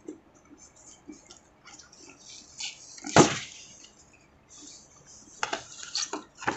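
Handling noise from unpacking a hard carrying case: scattered rustles and crinkles of a cardboard insert and a small plastic bag, with one sharp knock about three seconds in and a run of crackly clicks near the end.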